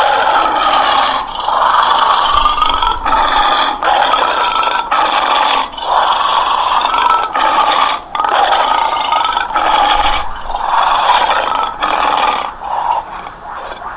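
Lion growling in a string of rough calls, one after another with short breaks between them, getting somewhat quieter near the end.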